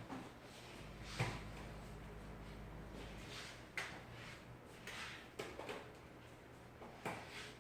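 Scattered light clicks and knocks of tools and parts being handled on a repair bench. A low hum starts about a second in and stops a couple of seconds later.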